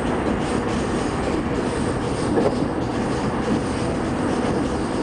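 Steady running noise of a passenger train in motion, heard from inside the carriage, with a faint steady hum underneath.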